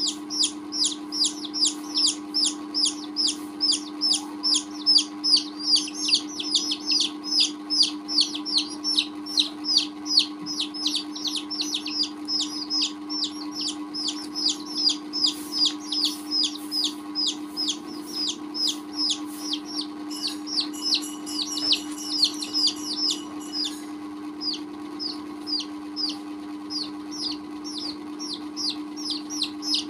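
Baby chicks peeping continuously in a rapid run of short, high, downward-sliding peeps, about three a second, over a steady low hum; the peeps come a little less densely near the end.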